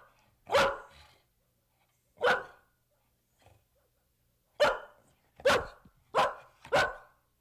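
A dog barking loudly: one bark, a second about two seconds later, then after a pause a run of four quick barks.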